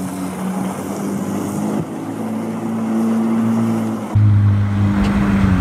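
Jet ski engine running steadily as the craft moves off across the water, its pitch rising slightly about two seconds in. About four seconds in it turns suddenly louder and deeper, heard close up.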